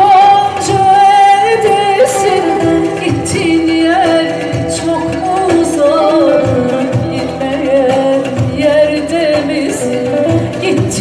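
Female voice singing long, ornamented, wavering notes of a Turkish folk song into a microphone, over electronic keyboard accompaniment with scattered percussion hits, all through a PA system.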